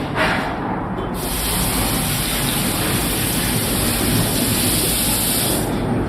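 A person blowing their nose hard: a short burst at the start, then one long, steady hissing blow of about four seconds that fades near the end.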